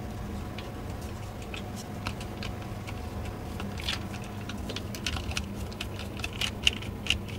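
Small, irregular clicks and ticks of a screwdriver turning out the small screws that hold the battery inside a Bang & Olufsen Beosound Explore speaker, coming more often in the second half. A low steady hum runs underneath.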